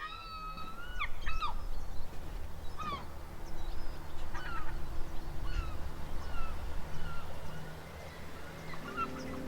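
Seagulls calling over and over, short cries that slide downward in pitch, over a steady low rumble.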